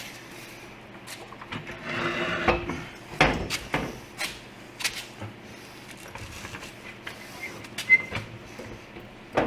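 Scattered knocks and clatter of parts and tools being handled during reassembly, with a brief scraping rub about two seconds in.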